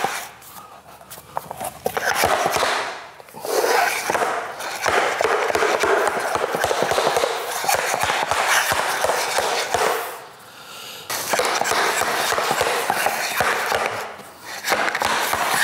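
Vinyl floor planks being fitted together by hand: scraping and sliding, with many quick clicks and taps as the joints are knocked into place, pausing briefly a few times.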